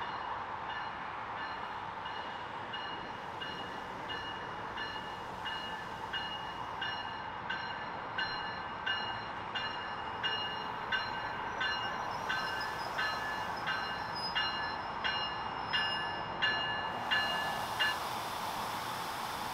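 A commuter train's bell ringing steadily, about one and a half strikes a second and growing louder as the Bombardier MultiLevel cab car pulls into the platform. It stops shortly before the end, over a steady rush of the train rolling in.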